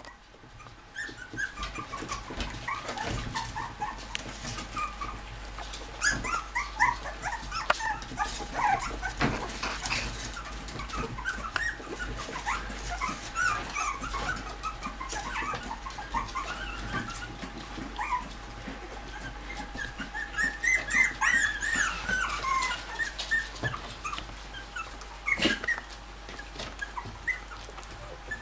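A litter of Bichon Frisé puppies whimpering and yipping: many short, high squeaks overlapping throughout, thickest about two-thirds of the way in, with a few knocks in between.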